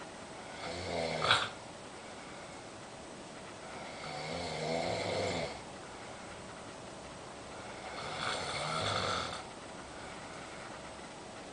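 Snoring: three snores about four seconds apart, the first short and the other two longer, each a low rattling breath.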